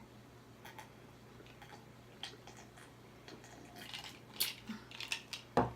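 Scattered faint clicks and taps from things being handled, then near the end a loud burp.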